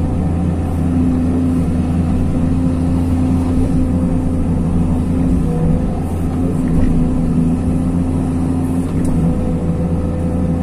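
Hyundai R220 crawler excavator's diesel engine running steadily under load, heard from the cab, with the hydraulics working the boom and grading bucket as it spreads soil. It is a continuous, even hum with no sharp knocks.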